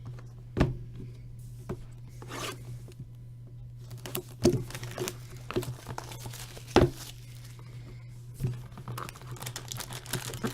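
Plastic shrink wrap being torn and crinkled off sealed trading-card boxes, with scattered sharp knocks of cardboard boxes being handled.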